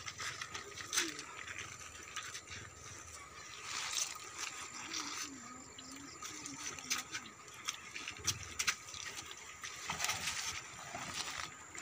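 Bullock cart on the move: scattered knocks from the wooden cart over a steady rustling noise.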